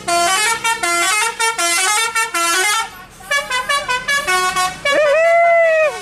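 Tour bus's 'telolet basuri' multi-tone air horn playing a quick melody of short stepped notes. After a brief break about three seconds in it plays on, ending with one long note that dips and swoops up, then cuts off.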